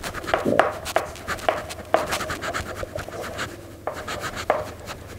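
Chalk writing on a chalkboard: quick, irregular scratches and taps of the chalk stick as words are written out.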